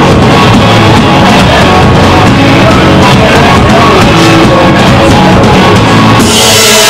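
Live rock band playing very loudly: electric guitar heard close up, with drums behind it. The sound grows brighter and splashier near the end.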